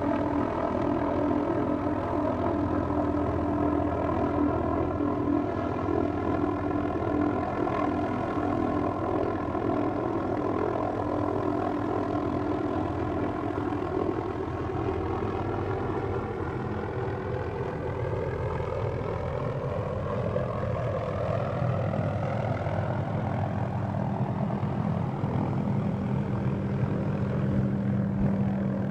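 Helicopter hovering with its rotor and engine running steadily. About halfway through the pitch rises as the helicopter comes lower and closer to set down.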